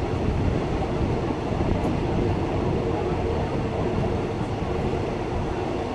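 Train running steadily along the rails: a continuous, even rumble.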